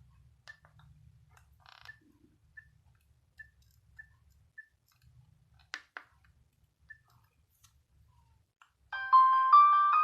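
Faint short beeps, all at one pitch, and light clicks from a Nokia 3660 as its keys are pressed. About nine seconds in, a polyphonic ringtone starts loudly from the phone's speaker: a bright synthesized melody of stepped notes.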